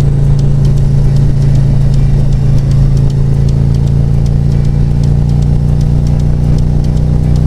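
Harley-Davidson Road Glide's V-twin engine running steadily at cruising speed, heard from the rider's seat.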